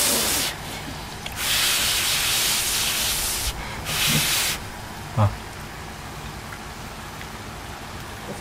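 A person blowing hard on a hot bite of food held in chopsticks to cool it: three breathy blows, the middle one about two seconds long. About five seconds in there is a single short dull thump.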